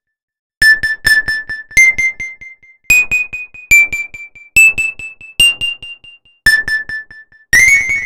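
Synthesized keyboard melody played back from FL Studio Mobile's piano roll: short, bright notes, some struck twice in a row, stepping upward in pitch and falling back lower near the end. It begins after about half a second of silence.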